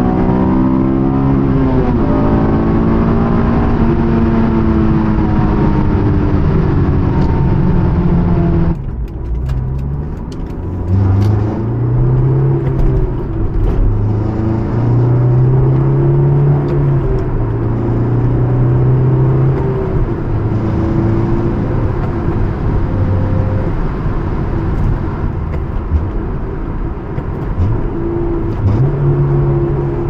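A 2008 Honda S2000's 2.2-litre four-cylinder engine with an aFe Takeda intake, heard inside the cabin while driving. The engine note falls steadily as the car slows from speed, drops off suddenly about nine seconds in, then runs at lower revs with its pitch stepping up and down, and climbs again near the end as the car picks up speed. Road noise runs underneath.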